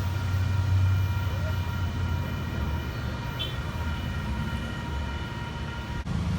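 Train passing: a diesel locomotive's low rumble with a steady chord of high tones above it, which stop at an abrupt cut about six seconds in.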